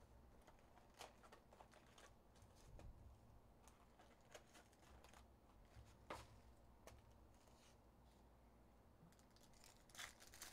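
Faint handling sounds of trading-card boxes and foil card packs: light rustling and crinkling with a few soft taps, the sharpest about six seconds in and a small cluster near the end.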